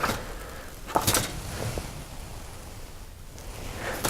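Handling noise from a plastic model kit: short rustles and clicks as paper and styrene parts are moved, the clearest burst about a second in.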